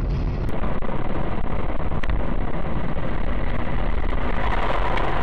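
Steady road and engine rumble of a moving car, heard from inside the cabin through a dashcam microphone. About half a second in, the sound changes abruptly and becomes louder, then runs on evenly.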